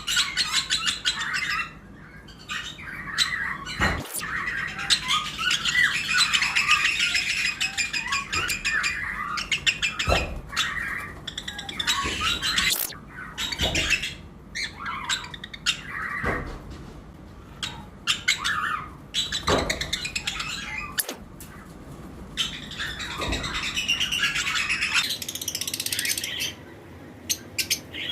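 A flock of lovebirds chirping continuously, many birds calling over one another in quick high chirps, with a few short knocks now and then.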